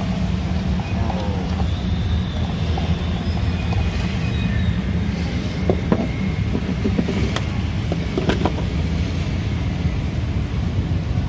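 A steady low rumble runs throughout, with a handful of sharp clinks and knocks near the middle, from a metal spoon and a stainless-steel mug being handled.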